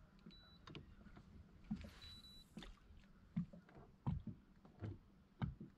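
Water lapping against a small fishing boat's hull: irregular soft, low knocks.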